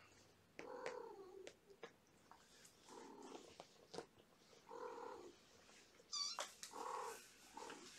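Young kittens mewing faintly, with one high, wavering squeak near the end, amid soft rustling and a few light ticks as a towel is dragged with kittens clinging to it.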